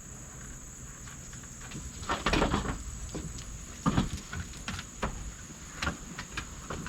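Steady high-pitched drone of insects, with scattered knocks and rustles over it: a rustling cluster about two seconds in and the loudest thump about four seconds in.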